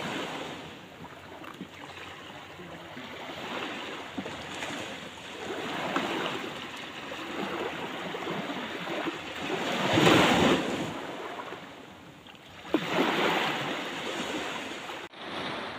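Small sea waves washing onto the shore, surging and fading every few seconds, loudest about ten seconds in.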